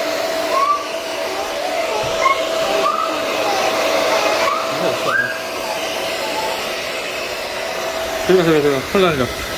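Hair dryer blowing steadily on a wet kitten's fur, a constant rush of air with a steady hum in it. Short high chirps sound over it, and a brief falling cry comes near the end.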